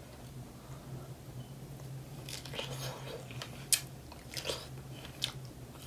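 Biting into and chewing a large fresh strawberry: wet mouth sounds with a scatter of short clicks and smacks, most of them in the second half.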